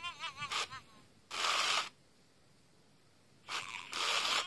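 1998 Snowball Furby talking through a dying speaker: a run of short, wavering high-pitched chirps, then half-second bursts of hiss. After a pause comes another hiss and more chirps at the end, its voice distorted by the failing speaker.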